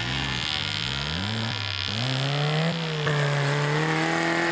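Tractor engine revving, its pitch rising and falling several times, then holding steady at high revs for the second half.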